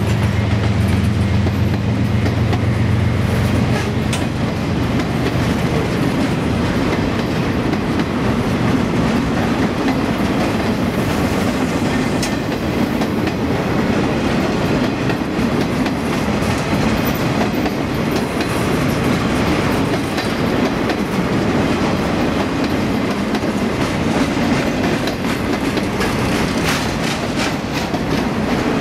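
Boxcars of a freight train rolling past close by: a steady rumble and clatter of steel wheels on the rails. A low drone is also heard, fading out over the first few seconds.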